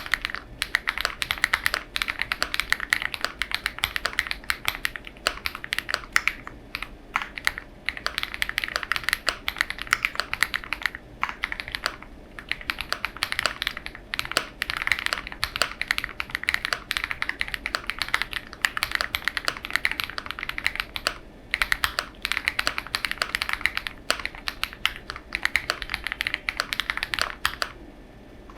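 Custom mechanical keyboard with lubed Huano Matcha switches, an FR4 plate, full foam and OXO Eva 01 keycaps being typed on quickly and continuously, with a few brief pauses between runs of keystrokes.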